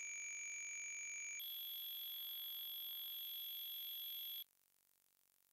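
A pair of steady pure sine tones, the random-frequency signals drawing a Lissajous figure on a software oscilloscope emulator. About one and a half seconds in they jump together to a new, higher pair, and near the end they cut off suddenly.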